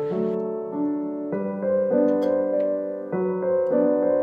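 Background piano music: slow, gentle chords that change about once a second.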